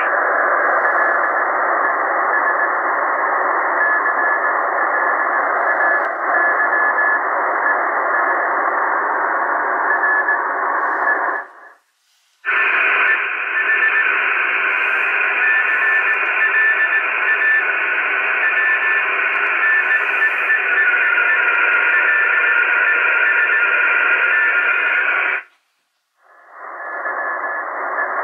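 Shortwave receivers in SSB mode, tuned to about 3534 kHz in the 80 m band, give a steady rush of band-limited static with a weak Morse (CW) tone keying on and off in it. First the Tecsun PL-880 plays with a duller, narrower hiss. It cuts out about halfway through, and then the Lowe HF-150 plays with a wider, brighter hiss. A second short break near the end brings back the Tecsun's narrower sound.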